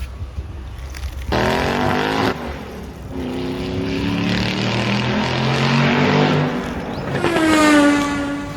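Car engine revving in several separate stretches, its pitch rising, holding and stepping.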